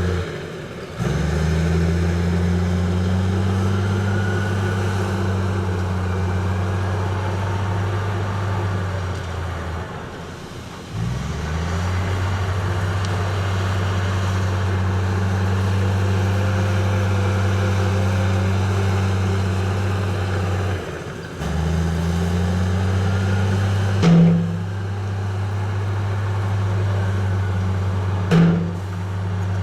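Diesel engine of heavy earthmoving machinery running steadily with a deep drone. It drops out and picks up again a few times, and there are two sharp, loud knocks near the end.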